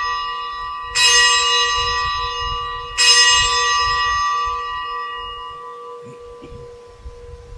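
Altar bell struck twice, about two seconds apart, each strike ringing on in a long fading tone over the decay of the one before. It is the bell rung at the elevation of the consecrated host at Mass.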